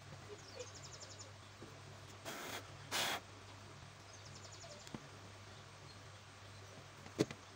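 Quiet background with a steady low hum, and a short high trill of rapid pulses that comes back every few seconds. Two brief hissing bursts come about two to three seconds in, and a single sharp click near the end.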